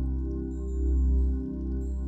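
Ambient background music: sustained held tones over a deep drone that swells and fades about once a second.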